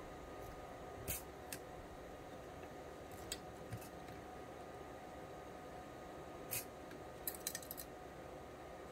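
Scattered small clicks and snaps from a hand-operated spring-bending tool as steel wire is clamped and bent in it, a few single clicks and then a quick cluster near the end, over a faint steady hum.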